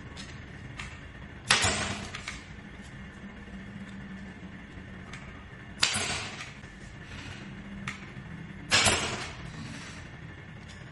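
Three sharp bursts, each trailing off in a short hiss, a few seconds apart, over a steady low hum.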